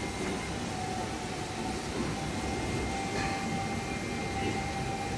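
Automatic TIG pipe welding machine running: a steady hiss and hum, with a thin steady whine that sets in about half a second in.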